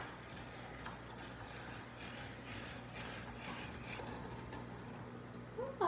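Pampered Chef hand-cranked countertop spiralizer being turned, its blade cutting a zucchini into noodles. There is a click at the start, then a faint, uneven mechanical cranking.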